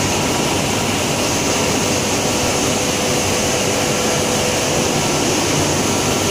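Chicken manure organic fertilizer pellet production line running: a loud, steady machinery noise with a few faint steady hums, and no change throughout.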